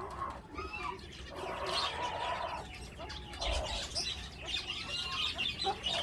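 Mixed calls of aviary birds: fowl clucking and small birds chirping in short, scattered calls.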